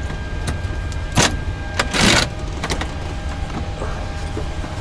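Clicks, clacks and a brief rattling scrape of a Boeing 737 cockpit observer's folding jump seat being pulled out and unfolded by hand, over a steady low hum. There is a sharp clack about a second in and a longer rattle about two seconds in.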